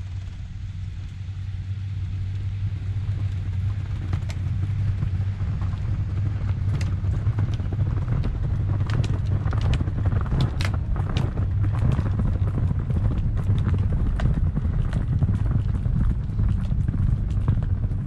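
Ram ProMaster van's engine labouring as it pushes through deep snow on front cable chains, growing louder as it draws near, with irregular clacking of the chains and crunching snow from about four seconds in. The van is barely making headway: the resistance from pushing the snow is too much.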